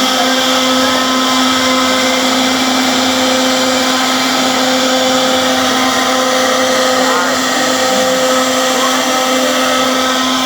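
CNC wood-carving router running steadily: a constant motor hum with a steady whine over even noise.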